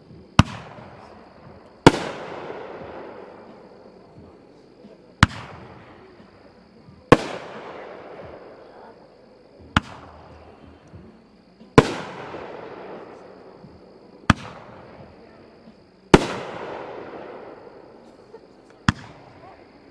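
Dominator aerial fireworks firing shot after shot: a sharp launch bang, then about two seconds later a louder bursting report that echoes away, repeated four times, with a fifth launch near the end.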